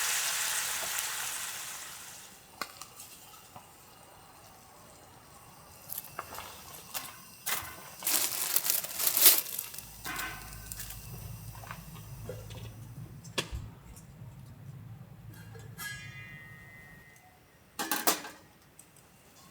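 Food sizzling in a pan fades away over the first two seconds. Scattered clicks and knocks of cookware being handled follow, with a low hum for several seconds in the middle and a sharper knock near the end.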